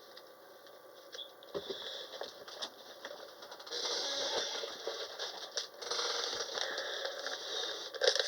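Rustling and crinkling of packaging being handled, with small clicks, quiet at first and louder from about four seconds in.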